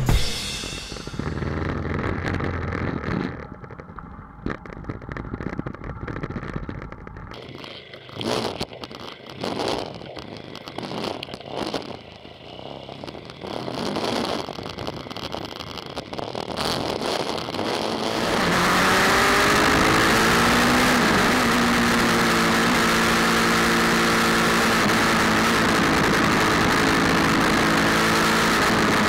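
Pulsar 200NS motorcycle's single-cylinder engine revving up amid knocks and clatter, then about two thirds in the bike rides off: a steady rush of wind and road noise with the engine note rising and dropping as it shifts up through the gears.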